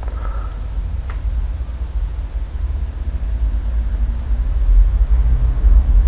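Steady low rumble of background noise on the microphone, growing slightly louder towards the end, with a single short click about a second in.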